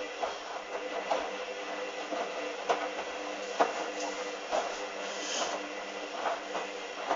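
Hoover Dynamic front-loading washing machine tumbling a single pair of jeans in its first rinse: a steady motor hum with irregular soft thuds and swishes about once a second as the drum turns the wet load.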